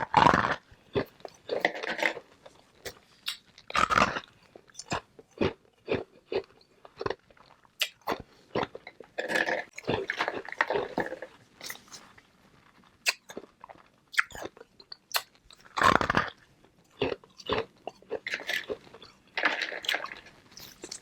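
Flavored ice balls being bitten and chewed close to the microphone: irregular sharp cracks and crunches, with a few louder crunching bites every few seconds.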